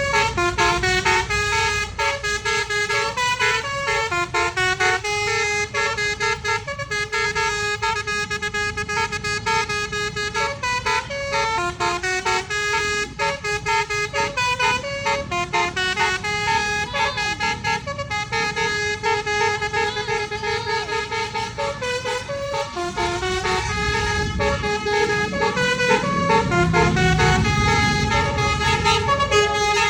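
Bus telolet horn, the Indonesian multi-tone musical air horn, playing a long stepping melody of horn notes without a break. A low engine rumble runs underneath and swells near the end.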